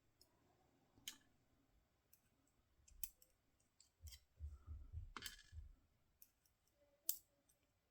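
Faint, scattered clicks of small metal lock pins and parts being handled, about four in all, with a low rumble of handling from about four to six seconds in.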